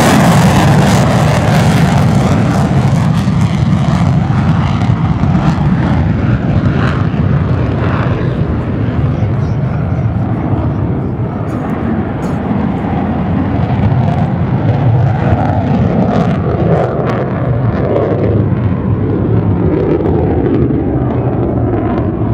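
Lockheed Martin F-35A Lightning II's Pratt & Whitney F135 jet engine in afterburner, a loud roar as the fighter climbs away. The hiss fades after a few seconds, leaving a deep rumble that slowly dies down as the jet recedes.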